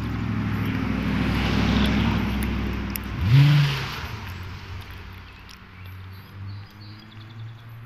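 A motor vehicle engine with road noise that swells, peaks about two seconds in and fades, its pitch briefly rising about three seconds in, then a fainter steady engine hum.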